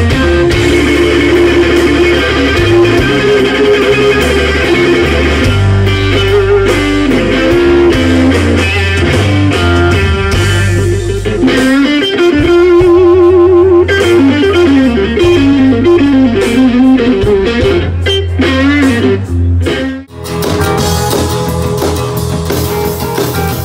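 Live blues-rock band with a lead electric guitar solo: sustained notes with wide vibrato and bends over a bass line. About twenty seconds in it breaks off and a different band's song starts.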